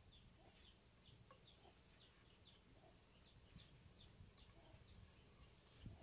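Near silence: faint outdoor ambience with short, high chirps repeating about twice a second over a low rumble.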